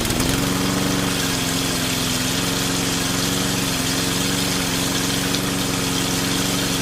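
A motor running steadily at one even speed, its pitch settling just at the start and cutting off abruptly at the end.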